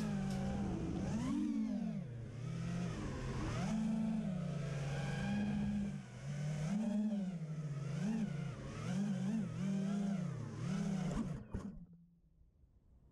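FPV racing quadcopter's four brushless motors (LD Power FR2307, 2450 KV) with four-blade props, whining and swinging up and down in pitch as the throttle changes. The sound cuts off suddenly near the end.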